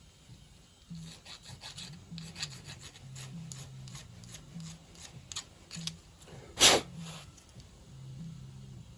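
Bench work on small metal pump parts: a run of short rubbing and scraping strokes with light clicks, then one louder brief rush of noise about two-thirds through, over a low steady hum.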